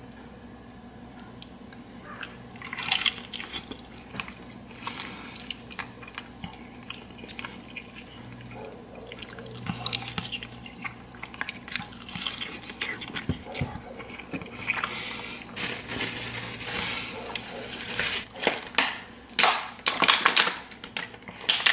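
A person eating a piece of sauced seasoned chicken: wet chewing and smacking with scattered little clicks. Near the end come louder gulps from drinking out of a glass.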